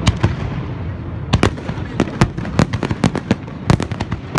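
Fireworks barrage: aerial shells bursting in quick, irregular succession, sharp bangs several a second over a continuous low rumble, with a brief lull about a second in.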